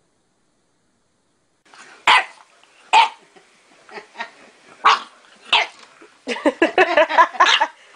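Bulldog puppy barking, starting about two seconds in: single sharp barks about a second apart, then a rapid run of high yaps near the end.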